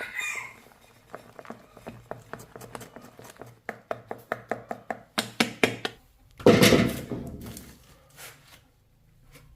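Knife chopping on a cutting board in quick, even strokes, about three to four a second, with a louder noisy burst of scraping or clattering about six and a half seconds in.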